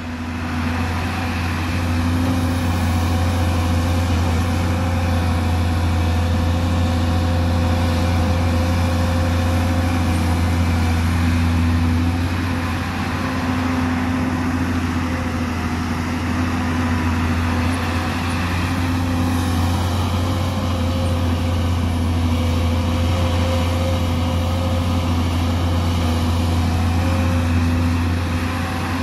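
Hyundai crawler excavator's diesel engine running steadily as the machine digs, with a slight dip in level about halfway through.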